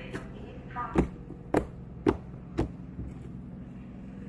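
Freshly activated homemade slime being pressed and handled, giving four sharp pops about half a second apart.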